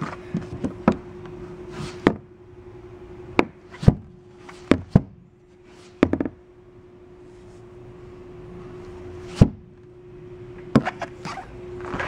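Boat cockpit storage compartment lids being opened and shut: a series of sharp clicks and knocks from the lids and their latches, over a steady low hum.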